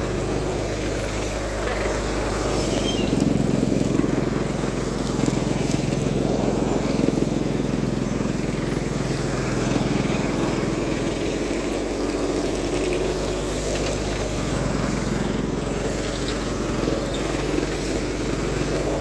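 Tractor-driven grain thresher running steadily as cut crop is fed into it, the engine's low hum under the rushing of the threshing drum, a little louder for a few seconds near the start.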